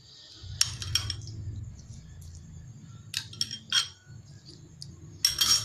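Metal spoon clinking against a cut-glass trifle bowl while spooning jelly onto the fruit layer, in three short clusters of light clinks, the loudest near the end.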